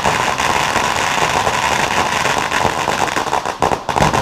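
A string of firecrackers going off in a dense, continuous crackle of rapid bangs, breaking into more separate bangs near the end.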